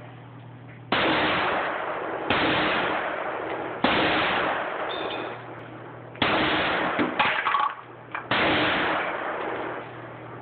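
AR-15-style rifle fired in slow, single shots, five in all and one to two seconds apart, each crack followed by a long echo. A few short, sharper cracks come between the fourth and fifth shots.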